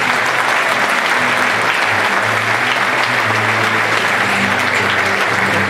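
Audience applauding steadily, with an acoustic guitar playing low held notes underneath.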